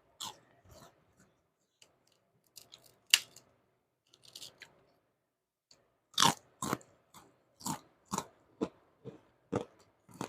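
A person chewing food close to the microphone, with crisp, wet crunches. The chews are scattered at first; about six seconds in they become a steady run of about two crunches a second.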